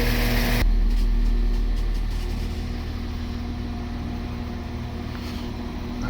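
Class 197 diesel multiple unit running at the platform, a steady low engine drone with a held tone, easing off from about two seconds in. A loud hiss cuts off sharply about half a second in.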